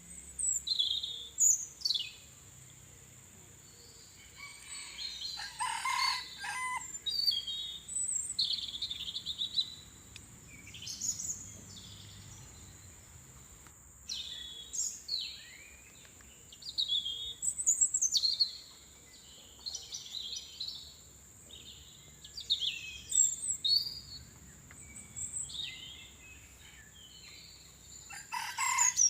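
Birds chirping and calling in clusters of short, high calls, over a steady high-pitched tone.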